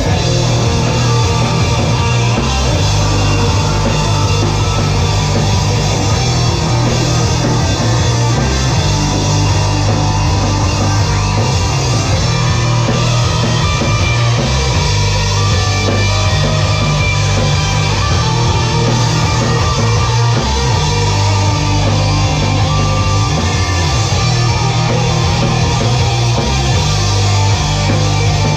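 Grunge rock band playing live and loud: electric guitars, bass guitar and drums.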